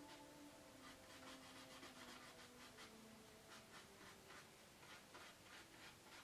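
Faint strokes of a fine paintbrush working oil paint on a stretched canvas: soft, irregular scratchy brushing, about two or three strokes a second.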